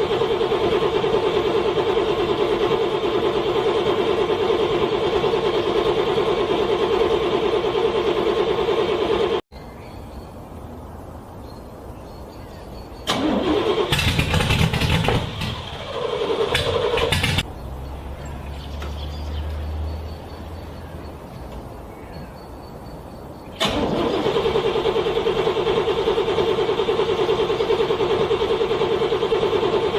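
Car engine cranking on its starter in the cold without catching, a steady, fast, even churning. It stops abruptly about nine seconds in. After a pause broken by a few seconds of louder, harsher noise, the cranking starts again near the end.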